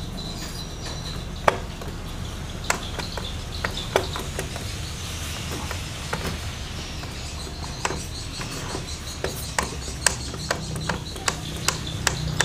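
Irregular sharp clicks and knocks from the Yamaha Soul GT scooter's rear wheel and final-drive gearbox as the wheel is rocked back and forth by hand, over a steady low hum. This kind of knocking is typically a sign of too much play between the reduction gears, from worn gears or bearings.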